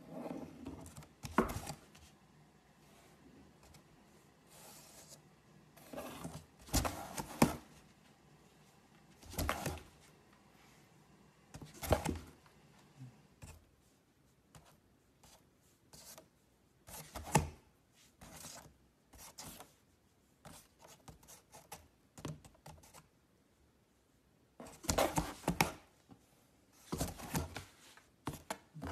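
Fingernail scratching and tapping on a cardboard box in short scratchy bouts every few seconds, with fainter scrapes between.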